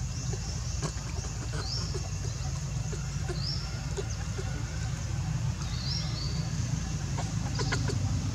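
A bird repeating short high chirps that rise and then level off, every second or so, over a steady low rumble, with a few faint clicks.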